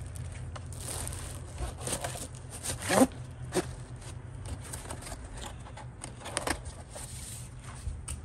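Handling of a cardboard parts box and its packaging: scattered scrapes, rustles and knocks, the loudest about three seconds in, over a steady low hum.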